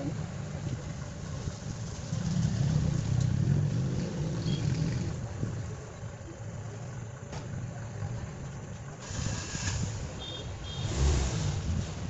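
A low, steady engine rumble, louder for about three seconds starting about two seconds in, with brief hissing rustles near the end.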